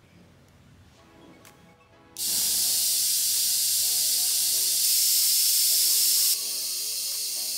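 High-voltage corona discharge hissing at the copper electrode of a DIY ion thruster. It switches on abruptly about two seconds in, steps louder briefly and drops back a little about six seconds in.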